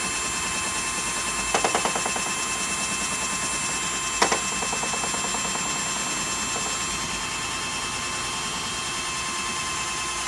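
Cordless drill running steadily with its bit in the window frame, a constant whine with a short run of rapid clicks about a second and a half in and one sharp click about four seconds in.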